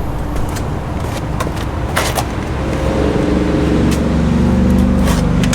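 A motor running steadily with a low hum whose pitched tone grows stronger about halfway through, and a few sharp clicks.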